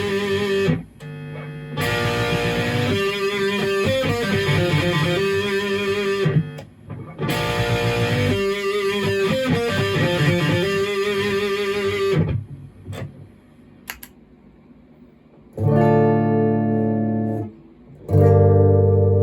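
Maverick Chaos 2 HT electric guitar played through a Brown Creature distortion pedal: dense riffing that breaks off briefly twice, falls quiet about two-thirds of the way through, then two held chords ring out near the end.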